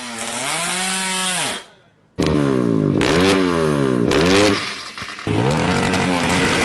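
Drag-racing motorcycle engine revving hard, its pitch swinging up and down several times. It cuts out abruptly for a moment about two seconds in, then comes back revving again.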